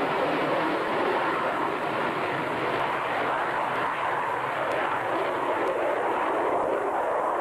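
Jet noise from a Panavia Tornado's twin RB199 turbofan engines, a steady rushing noise that stays even in loudness.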